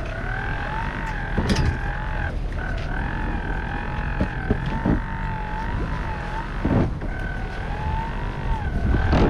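Wind and sea noise aboard a sailing yacht under way in a rolling sea, with a high whistling tone that wavers up and down throughout, dropping out briefly about two seconds in and again near seven seconds, and a few sharp knocks.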